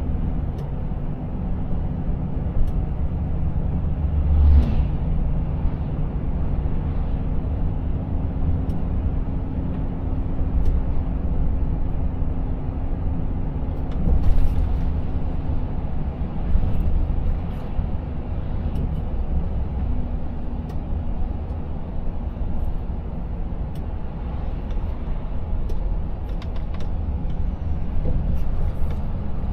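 Inside the cab of a Volvo FH 500 Aero truck cruising at highway speed on a wet road: steady low engine drone with tyre and road noise. Brief thuds about four and fourteen seconds in.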